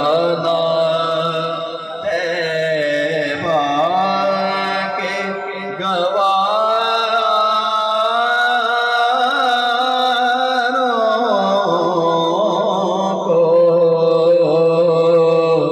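A man reciting a naat, singing long, drawn-out vowel notes with wavering ornaments into a microphone, without clear words.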